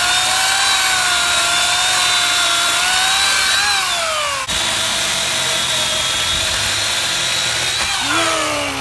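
Electric chainsaw cutting through a tree limb: a steady high motor whine whose pitch sags as the chain bites into the wood. Near the end the whine falls away as the saw winds down.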